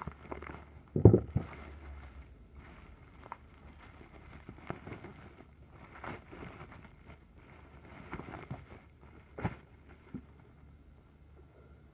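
Plastic bubble wrap rustling and crackling as a parcel is unwrapped by hand, with two louder knocks, one about a second in and another near the end.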